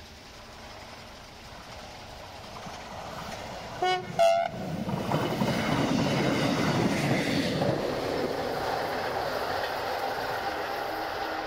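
Duewag VT 628 diesel multiple unit approaching with two short horn toots about four seconds in, then passing close by, its diesel engine and wheels on the rails loud for several seconds.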